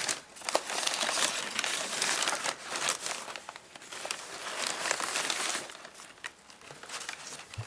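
Packing material crinkling and rustling as a reptile shipping box is unpacked by hand, with many small crackles; it dies down after about six seconds to a few faint clicks.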